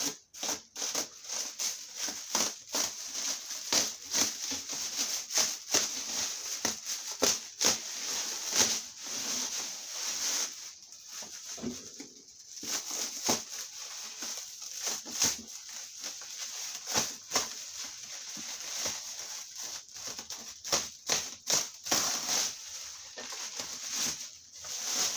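Clear plastic stretch wrap being cut with a small knife and pulled away, crinkling and crackling in a continuous run of irregular crackles.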